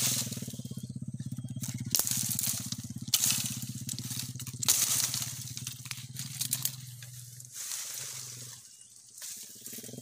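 Dry branches and twigs crackling and snapping as a person pushes through thorny scrub, in several loud crashes in the first five seconds, with a steady low hum underneath.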